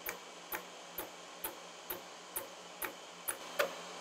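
Single-point cutter on a Lucas horizontal boring mill's spindle taking an interrupted cut across a shaft: a sharp tick each time the lone tooth strikes the work, once per revolution, about two a second. The ticks grow louder near the end, over a faint steady machine hum.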